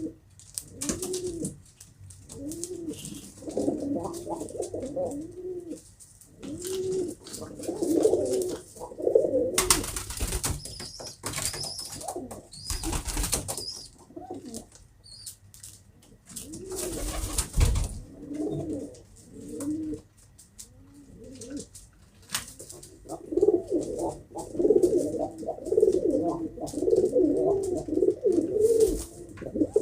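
Several domestic pigeons cooing over and over in low, rolling calls. A few loud rustling bursts come about ten, thirteen and seventeen seconds in.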